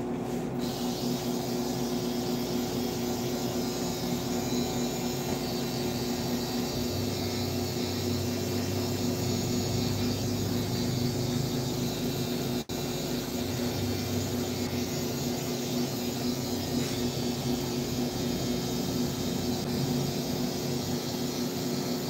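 Handheld hair blow dryer running steadily as it blows the hair dry, a constant motor hum under rushing air. The sound cuts out for an instant about halfway through.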